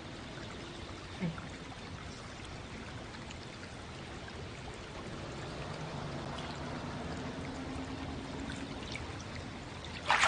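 Steady trickling and pouring of water into a hot-spring pool. A splash of water breaks in about ten seconds in as someone moves in the pool.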